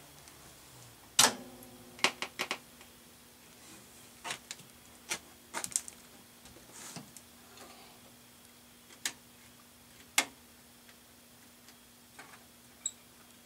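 Scattered clicks and light knocks from hands working on jukebox wiring and parts. A loud click about a second in is followed by a steady low hum that continues.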